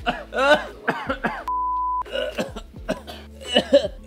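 A man coughing hard from the fumes of Thai chilies frying in a pan, with a half-second steady censor bleep over a word about one and a half seconds in.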